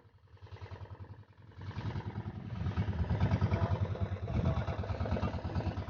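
Small engine running with a fast, even low pulsing, getting louder about a second and a half in.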